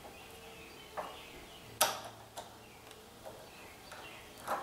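Small metal parking-brake parts and cable clicking and clinking against each other and the workbench as they are handled. There are about five sharp clicks, the loudest about two seconds in.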